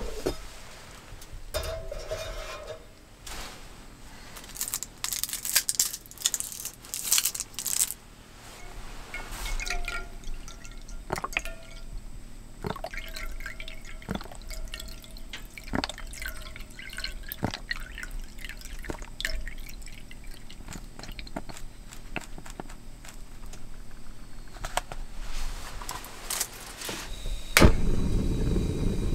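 Soy milk poured from a paper carton into a metal cup, splashing and trickling, followed by scattered light clinks of the cup and stove grate. Near the end a sharp click and then a steady low rush of gas, the cassette stove's burner being lit under the cup.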